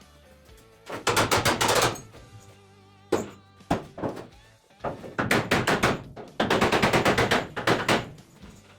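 Rapid runs of hammer blows on steel body panel, tapping it straight, in three bursts: about a second in, around five seconds in, and a longer run near the end. Background music plays under them.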